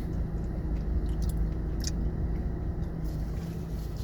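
A first bite of a soft-serve Blizzard being eaten: quiet chewing and a few faint clicks. A steady low hum of an idling car runs underneath.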